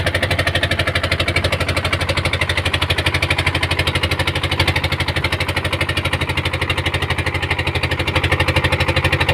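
A small engine running steadily at an even speed, with a rapid, regular pulsing.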